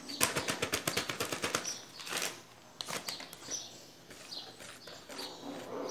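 A utensil knocking against a mixing bowl as panettone dough is stirred by hand: a quick run of about ten knocks a second lasting over a second, then scattered single knocks. The dough is a little stiff.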